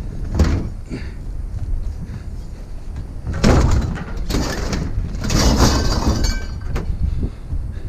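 Scrap being handled and loaded: a knock about half a second in, then two long stretches of clattering and scraping from about three and a half seconds in.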